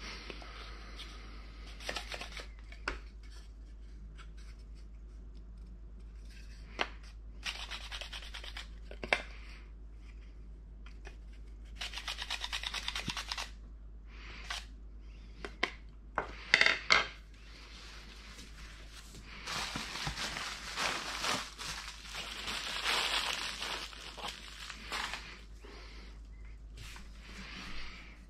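Black truffle shaved on a wooden truffle slicer: bursts of rapid scraping strokes of the truffle across the steel blade. Between the bursts come a few sharp knocks, the loudest about 17 seconds in.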